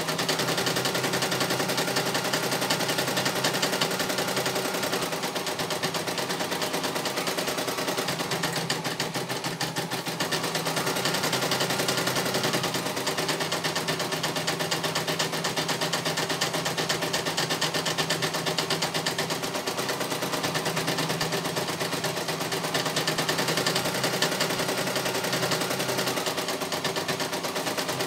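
CNY computerized embroidery machine stitching a design: a rapid, even needle clatter with the motor's steady hum underneath.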